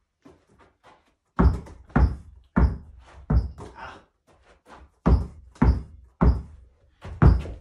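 Basketball dribbled hard on a carpeted floor: about nine dull bounces roughly half a second apart, with a short break in the rhythm about four seconds in.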